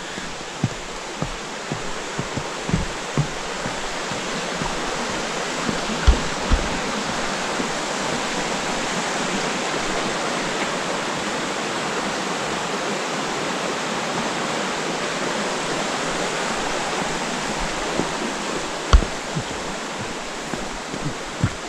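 A mountain stream rushing over rocks below a wooden footbridge: a steady rush that swells in the middle and eases near the end. Footsteps knock on the bridge planks, mostly in the first few seconds and again near the end.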